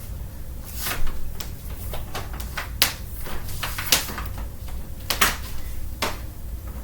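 Plastic clicks and knocks from a Dirt Devil Breeze bagged vacuum cleaner being handled, most likely its bag compartment being opened and shut. There are about six sharp clicks, spread unevenly over several seconds.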